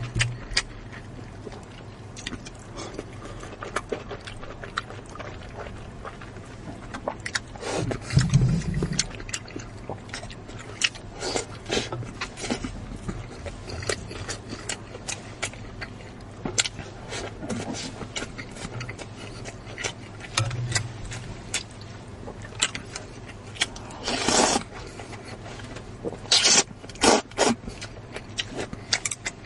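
Close-miked eating sounds: many short wet smacks and clicks of chewing, with a few longer slurps or sucks about eight seconds in and near the end.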